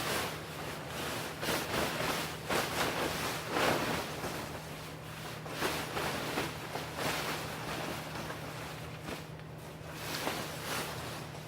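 Irregular rustling and swishing of tent fabric being handled during pitching, over a steady low hum.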